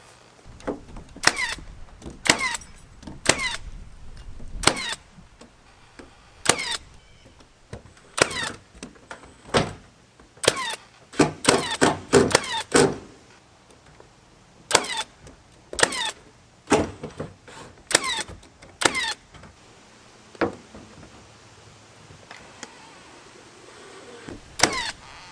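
A series of about twenty sharp knocks, irregularly spaced and sometimes in quick pairs: nails being driven into wooden framing during carpentry.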